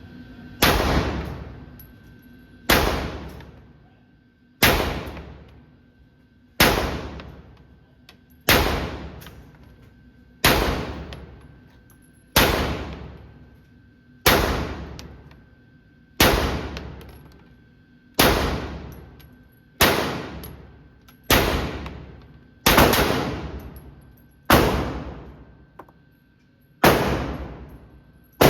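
Glock 25 .380 ACP pistol fired at a slow, steady pace, roughly one shot every two seconds, about fifteen shots, each ringing out and dying away over more than a second.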